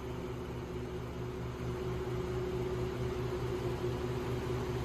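Room tone: a steady low hum with a faint hiss.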